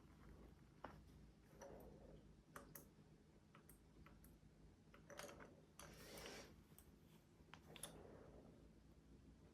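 Faint clicks and light knocks of metal tools and scooter parts being handled during assembly, scattered irregularly, with a few brief rustling noises in between.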